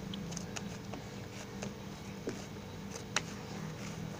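Hands kneading soft maida dough on a granite countertop: scattered faint taps and soft slaps of the dough being pressed against the stone, the clearest about three seconds in, over a steady low hum.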